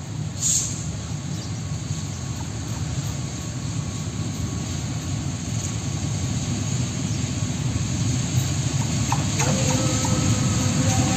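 Diesel-electric locomotive, a KAI CC206, approaching with a passenger train: a steady low engine and rail rumble that slowly grows louder as it nears. A short hiss comes about half a second in, and steady tones join near the end.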